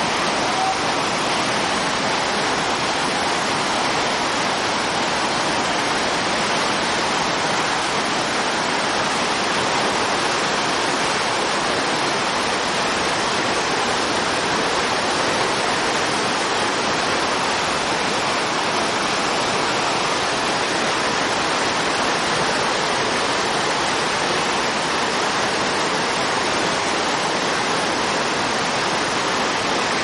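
Whitewater rapids rushing, a steady loud hiss of churning river water.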